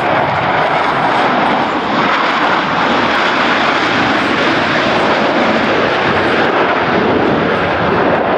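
A loud, steady rushing noise from aircraft engines as a plane flies by.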